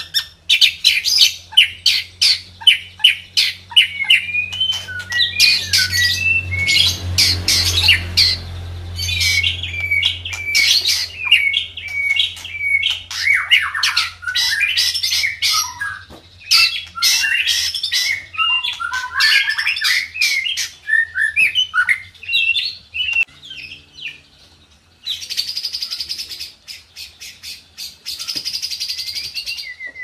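White-rumped shama (murai batu) singing a loud, varied song of rapid clicking chips and quick whistled phrases that glide up and down. A few seconds before the end it gives a steady buzzing trill lasting several seconds.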